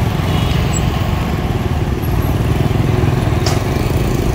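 Heavy recovery machine's diesel engine running steadily, with one brief sharp click about three and a half seconds in.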